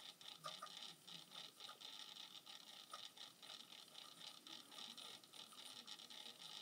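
Faint whir with light rapid ticking from a tornado lamp's small motor keeping the water vortex spinning, barely above silence.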